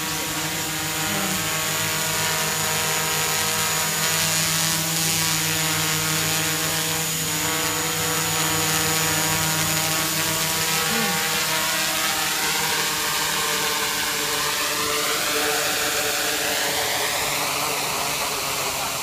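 Small 3D-printed quadcopter hovering: its four electric motors and propellers give a loud, steady whine of several tones together. In the second half the pitch rises and wavers.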